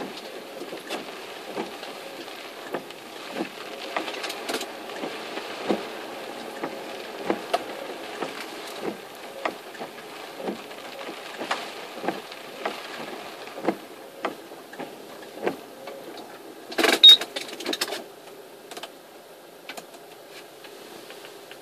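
Inside a car moving through typhoon rain: a steady cabin rumble with irregular sharp taps, roughly one or two a second, of heavy raindrops striking the car. About 17 seconds in comes a louder rasping noise with a short high squeal, and after it the sound is quieter.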